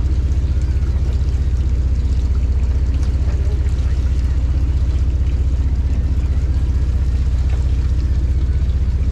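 Fishing boat's engine running steadily with a low, fast, even throb.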